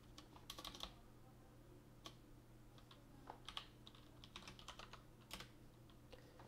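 Faint typing on a computer keyboard: a few scattered clusters of soft keystroke clicks, over a low steady hum.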